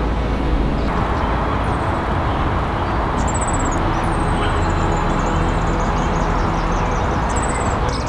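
Steady low rumble of traffic, with high, rapid bird trills over it: a short one about three seconds in, then a longer falling run of notes from about four seconds to near the end.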